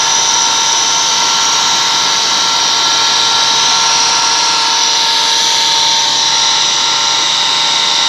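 Screw air compressor running steadily: a constant high-pitched whine made of several fixed tones over a hiss.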